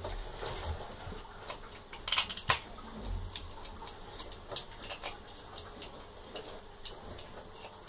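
Bosc monitor lizard crunching the shell of a juvenile giant African land snail in its jaws: irregular sharp cracks and clicks, loudest a quick cluster of cracks about two seconds in.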